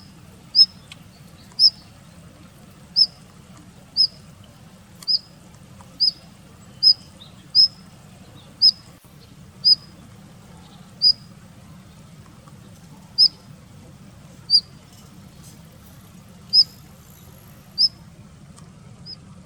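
Male Daurian redstart calling: a short, thin, high note repeated about sixteen times, roughly once a second at uneven intervals, over a faint low hum.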